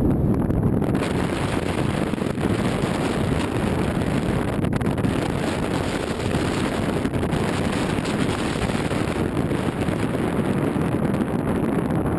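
Wind blowing at Nada Tunnel's rock passage and buffeting the microphone: a steady, deep rushing noise, with a higher hiss joining in about a second in.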